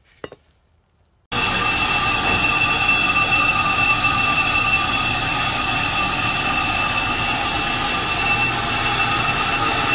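Bench brake lathe turning a brake disc while its cutting bit skims the braking surface, starting suddenly about a second in. It makes a steady loud hiss of cutting with several high ringing tones held over it.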